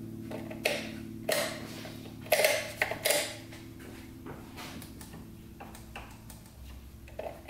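Several sharp clicks and taps in the first three seconds or so, from the ATV's fuses and switches being worked by hand, over a steady low hum. No starter or engine sound follows: the electrical system is dead.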